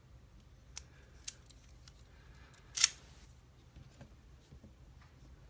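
Small metal clicks from hand tools working on an Abus E20 padlock while it is being taken apart: two light clicks, then one sharp, much louder snap near the middle, followed by a few faint ticks.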